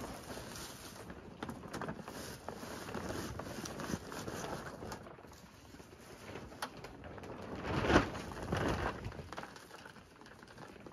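Dry leaf litter and leaf mold rustling and crunching as a wooden box is pressed down into a tote of leaves and handfuls of leaf mold are crumbled over its mesh top. The loudest crunches come about eight and nine seconds in.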